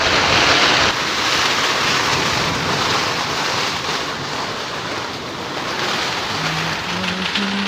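Heavy rain falling steadily, a dense hiss of rain and running water, a little louder for the first second.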